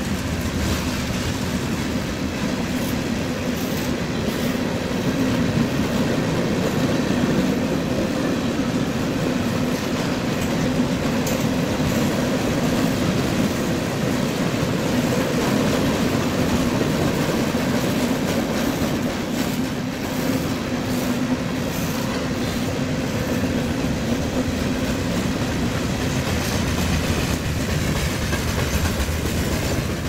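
Tank cars, flatcars and boxcars of a CSX manifest freight train rolling past, a steady rumble of steel wheels on the rails.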